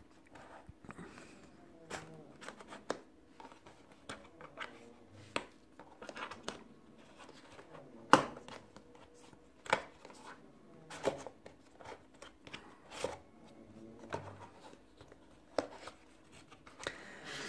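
Hands handling a rigid cardboard smartphone box and its inner tray as it is worked loose: irregular clicks, taps and light scrapes of the cardboard, with one sharper knock about eight seconds in.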